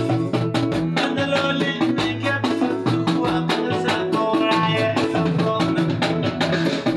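Music with a steady drum beat and bass, stopping abruptly at the very end.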